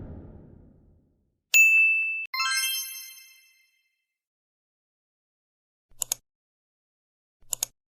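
Two bright bell-like dings, one about a second and a half in and a second just after, each ringing out and fading, followed later by two short clicks.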